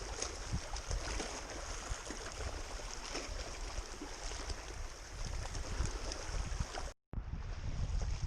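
Wind buffeting the microphone, a heavy low rumble under a steady rushing hiss. The sound cuts out completely for a moment about seven seconds in.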